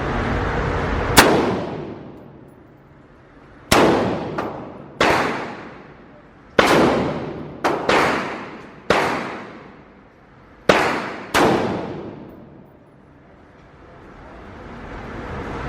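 Gunshots: about ten single shots fired at irregular intervals, each sharp crack followed by a ringing echo that dies away over about a second.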